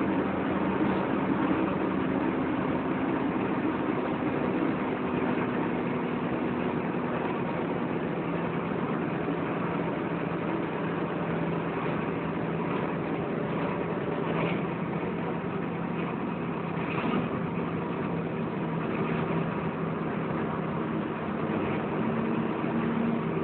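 Volvo B10BLE single-decker bus's diesel engine running, heard from inside the saloon: a steady drone that shifts in pitch a few times as the engine speed changes.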